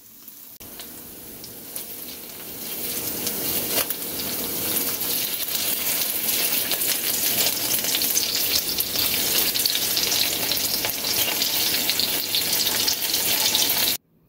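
Skinless longganisa sausages sizzling and crackling in a frying pan, now frying because the added water has cooked off. The sizzle builds over the first few seconds, holds steady, then cuts off suddenly near the end.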